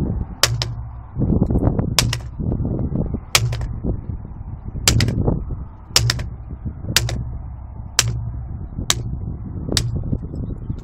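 ASP telescopic baton striking two pine sticks laid over a concrete block: about nine sharp cracks, roughly one a second, until the sticks break.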